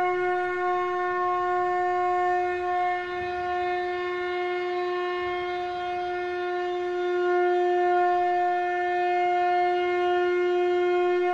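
Conch shell (shankh) blown in one long, steady held note, rich in overtones, breaking off near the end.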